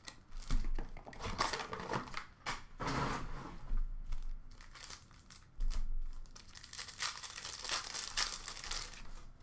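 Bowman Chrome baseball card box being unpacked: irregular crinkling and rustling of the wrapped card packs and box packaging as they are lifted out and stacked, with a couple of dull knocks as things are set down, about half a second in and again near six seconds.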